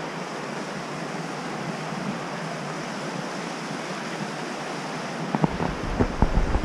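Steady rush of a shallow river flowing over rocks. About five seconds in, footfalls on the wooden footbridge deck begin as short knocks, with a low rumble on the microphone.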